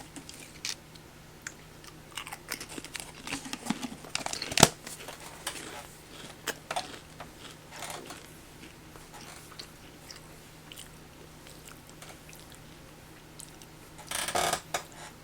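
Close-up crunching and chewing of Smoky Bacon Pringles potato crisps: irregular crisp crackles and clicks, with one sharp snap about four seconds in. The chewing thins out in the second half, and a short louder rustle comes near the end.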